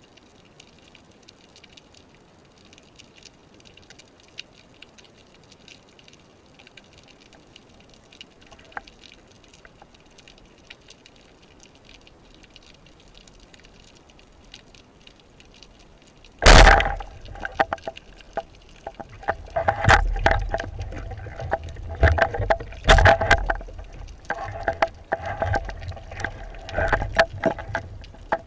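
Underwater: faint crackling with scattered light ticks, then about 16 seconds in a wooden band-powered speargun fires with a single loud sharp crack. A run of irregular knocks and low thuds follows as the shaft and shooting line are dealt with.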